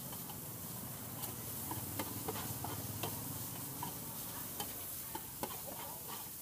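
Metal chopsticks clicking and scraping against a large flat steel frying pan as noodles and bean sprouts are stir-fried, irregular metallic ticks over a faint steady sizzle.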